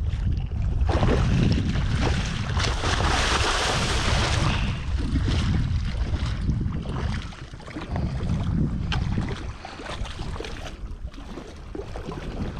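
Wind rumbling on the microphone and water splashing around a man wading in a river's shallows to land a hooked fish, with a louder rush of noise about one to four seconds in that eases off past the middle.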